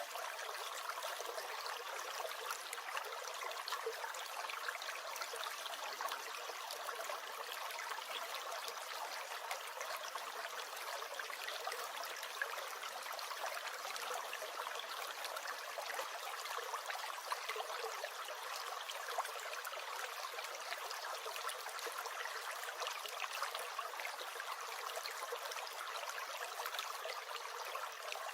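Small brook gurgling and trickling, a steady, even rush of running water.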